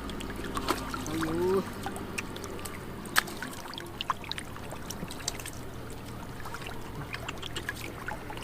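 Shallow muddy water trickling and splashing, with many small scattered ticks and drips, as hands work through it to catch fish.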